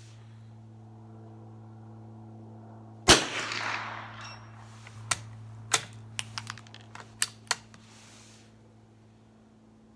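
A single shot from a Winchester 75 .22 rimfire bolt-action rifle about three seconds in, with a short echo under the range roof, followed by a few seconds of sharp metallic clicks.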